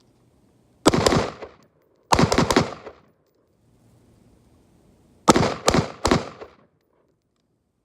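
Daniel Defense Mk18 AR pistol firing 5.56 rounds in three quick strings of several shots each: one near the start, a second right after it, and a third a few seconds later. Each shot rings out briefly.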